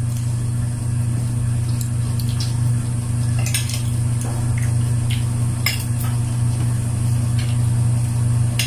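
Spoons and forks clinking against plates and bowls as people eat, a few scattered light clinks, over a loud steady low hum.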